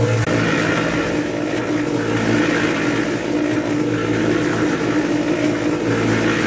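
Electric cement mixer running: a steady motor hum with the churning of wet concrete mix turning in the drum.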